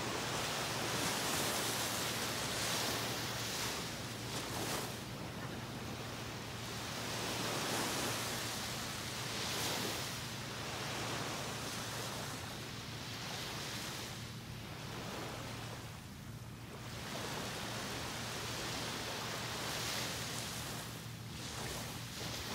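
Small waves breaking and washing up on a sandy beach: a steady hiss of surf that swells and eases every few seconds.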